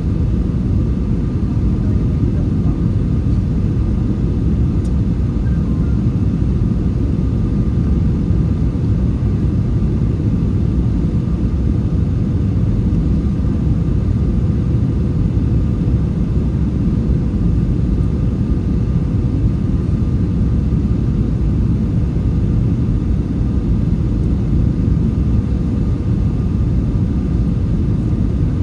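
Steady cabin noise of an Airbus A321 on approach: a constant low rumble of engines and airflow, with a faint steady hum above it.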